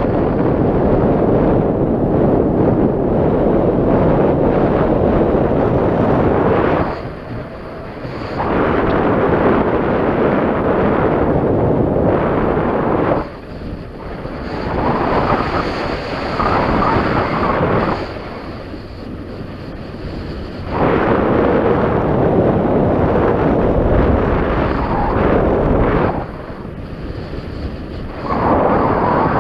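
Wind rushing over the microphone in loud gusts, dropping away briefly several times.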